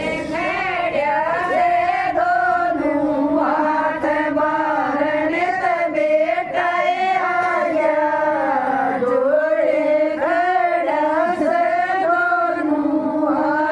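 Women singing a Hindi folk bhajan together in a continuous, wavering melodic line.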